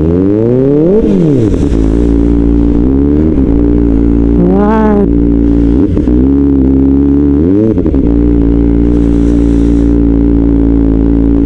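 Kawasaki Ninja ZX-4RR's 400 cc inline-four through an Austin Racing muffler, running at low revs with several quick throttle blips. Each blip rises and falls sharply, about one, three, five and eight seconds in.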